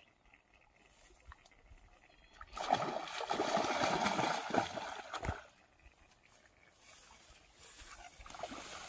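Water splashing for about three seconds, starting a few seconds in, then dying away.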